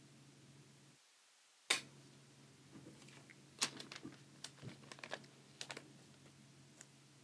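Small hard plastic objects being handled by hand: one loud sharp click about two seconds in, then a scattered run of clicks and taps. A low steady hum underneath cuts out briefly about a second in.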